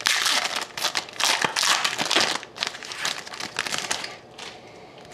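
Foil wrapper of a hockey card pack being torn open and crinkled by hand. It crackles densely for the first couple of seconds, keeps rustling in short bursts, and goes much quieter about four seconds in.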